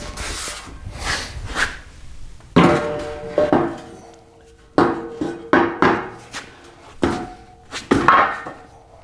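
Steel tubing of a chassis jig being knocked into position: about ten irregular metal clanks, most followed by a brief ringing tone, with a cluster of quick strikes in the middle.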